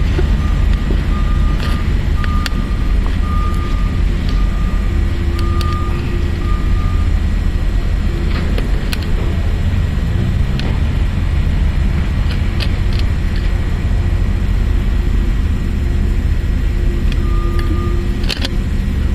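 A motor vehicle's steady low engine and road rumble. Short beeps at one pitch repeat evenly through the first several seconds and come back briefly near the end.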